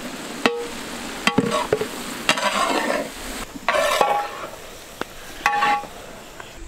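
Long metal ladle stirring a large metal pot of masala and lamb intestine, scraping through the food and knocking against the pot several times with short ringing clanks.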